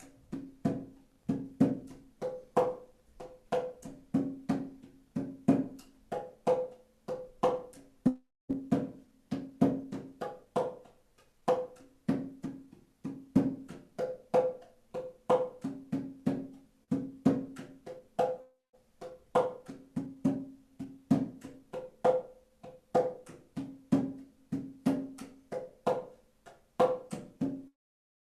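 Pitched hand percussion struck in a steady, quick rhythm of about three strokes a second, moving between a lower and a higher note, each note short and quickly damped.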